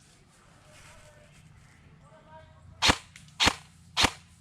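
Airsoft gun firing single shots: three sharp cracks about half a second apart, starting about three seconds in after a quiet stretch.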